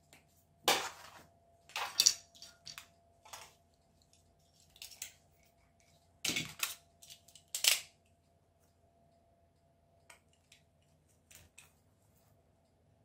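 Tools being handled on a workbench cutting mat: several short clatters and scrapes as a ruler is set aside and a snap-off craft knife is picked up, then a few faint ticks as the knife starts cutting into thin cardboard near the end.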